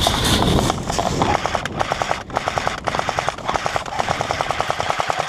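Airsoft gun firing on full auto in rapid bursts of clicking shots, starting about a second in and broken by a few short pauses.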